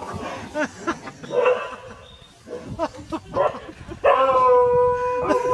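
Dogs barking and yelping in short, scattered calls, then one loud, long, steady cry about four seconds in.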